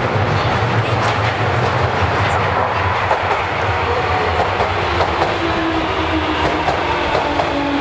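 Keio Inokashira Line electric train running on the track, wheels clicking over the rail joints, with a low whine that comes in about five seconds in and falls slightly.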